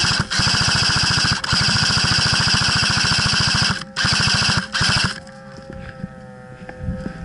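Airsoft light machine gun firing rapid full-auto bursts of covering fire, several in quick succession with short pauses between them, stopping about five seconds in.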